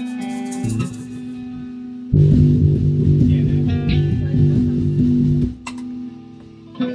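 Electric bass guitar playing with the band: a held note for about two seconds, then a loud run of rhythmic low notes for about three seconds, then a quieter held note again.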